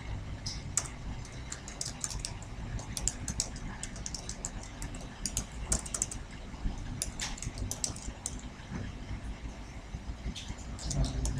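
Typing on a computer keyboard: irregular clusters of keystroke clicks with short gaps between words, over a steady low hum.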